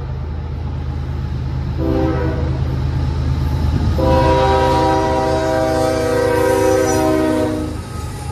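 Canadian Pacific diesel locomotive's air horn sounding a chord of several notes: a short blast about two seconds in, then a long blast from about four seconds in until near the end, the closing short-long part of the grade-crossing horn signal. Underneath, the low steady rumble of the approaching locomotives' diesel engines.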